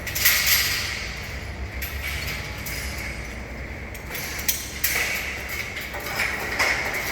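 Scaffolding parts being handled as the scaffold is taken apart: a sudden clatter just after the start, then scattered sharp knocks and more clatter near the end.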